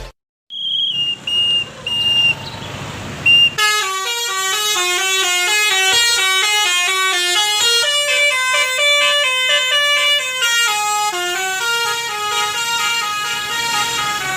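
A bus's telolet horn, a multi-tone musical air horn, playing a winding melody of short stepped notes that climb and fall about three times a second. It is preceded by a few short, high single beeps.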